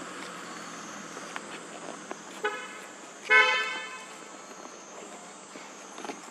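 Vehicle horn beeping twice: a short toot about two and a half seconds in, then a louder, slightly longer one about a second later, both at a steady pitch.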